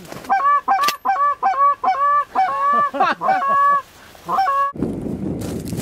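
Canada goose honks in a rapid string, about four or five a second, ending abruptly a little before the end. Wind buffeting the microphone follows.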